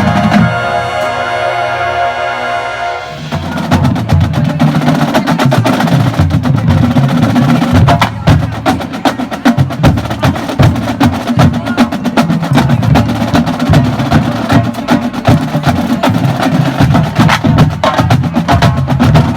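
Marching band in performance: the band holds a full chord for about three seconds, then it breaks off and the percussion section takes over with a fast, busy drum passage of dense rapid strokes.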